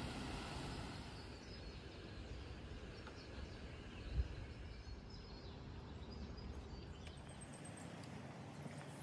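Quiet outdoor ambience: a low wind rumble on the microphone that drops away near the end, faint bird chirps, and a single dull thump about four seconds in.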